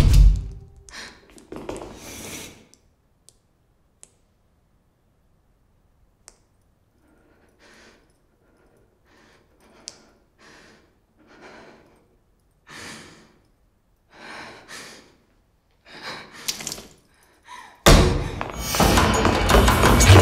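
A loud thud dies away, then after a near-silent stretch come short, breathy puffs at an uneven pace, growing louder. Near the end a sudden loud burst of sound breaks in.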